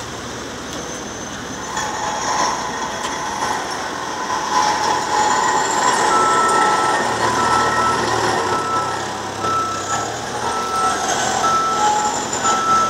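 Convoy vehicles passing at slow speed, engines running, growing louder a couple of seconds in. From about six seconds in, a vehicle's warning beeper sounds a short steady beep about one and a half times a second.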